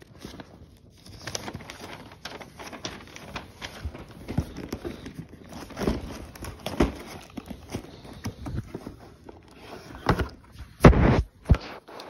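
Paper and cardboard rustling and crinkling as an instruction sheet and toy packaging are handled, with scattered small taps and knocks and a louder bump near the end.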